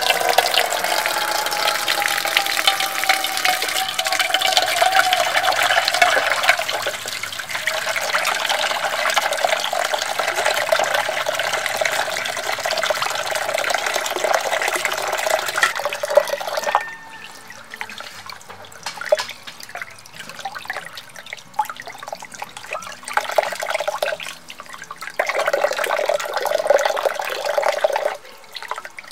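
Tap water running into a plate of cut fish pieces, a loud steady splashing for about the first 17 seconds. It then drops to softer, uneven spattering as hands rinse a fish under the stream, louder again for a few seconds near the end.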